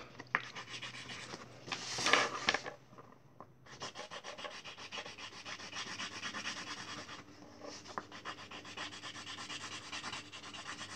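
Pen scribbling on paper in rapid back-and-forth strokes, colouring in a drawing. There is a louder scrape about two seconds in and a brief pause soon after.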